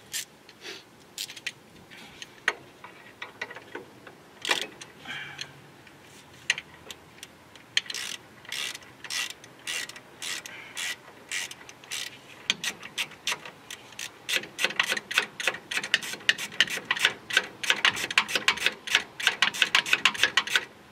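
Hand socket ratchet clicking as a bolt is turned on a front disc brake caliper. The clicks come singly and sparse at first, then run fast and steady, about five a second, through the last third.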